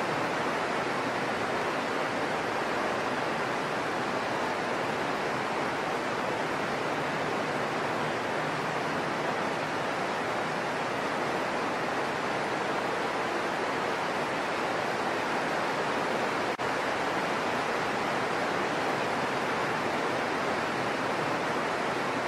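Steady heavy rain falling on dense leafy foliage, an even continuous hiss with no thunder.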